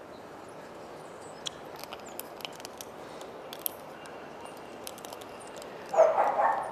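A few faint scattered clicks over a low background, then a sudden loud, harsh animal call about six seconds in.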